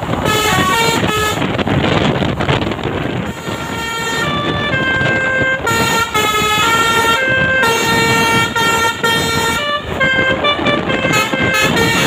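Basuri telolet musical air horn on a tour bus playing a tune of held notes that step from pitch to pitch, several tones sounding together. After the first short phrase it pauses for about two seconds, leaving engine and road noise, then plays on.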